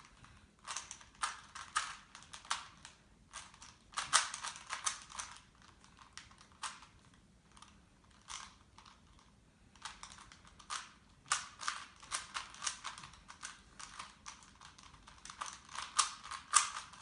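Plastic Rubik's Cube being turned fast in a speed solve: quick runs of clicking and clacking as the layers snap round, broken by short pauses.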